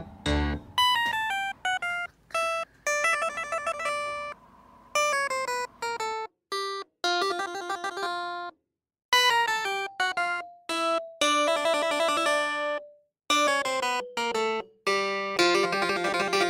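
Background music: a light instrumental melody of separate plucked-sounding notes, with a few brief pauses between phrases.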